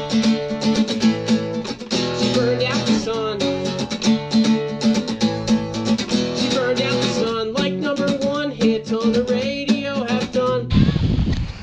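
Acoustic guitar strummed in a steady rhythm while a man sings along. About a second before the end it cuts off abruptly to wind noise on the microphone.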